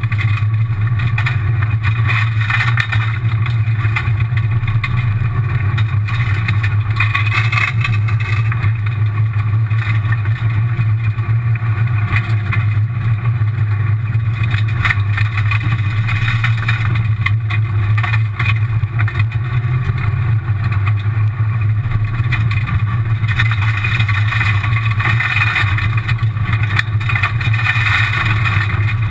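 Rally car driven flat out on a gravel stage, heard inside the stripped cabin: a steady, loud engine drone with continuous gravel and tyre noise, and a brief louder rush of gravel about seven seconds in.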